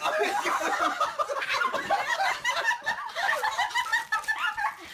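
People laughing hard: a continuous run of quick, high-pitched cackles.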